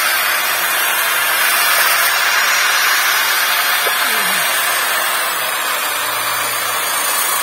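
Electric random orbital sander running steadily with its pad pressed flat on a pine board, a loud, even hiss.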